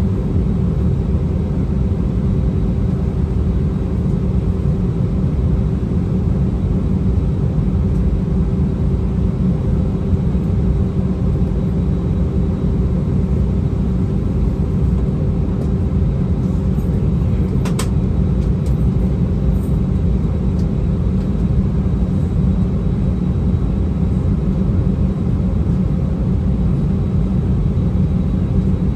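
Airbus A319 cabin noise on the ground before takeoff: a steady low rumble from the engines and airframe, with a steady hum over it. There is one brief click about eighteen seconds in.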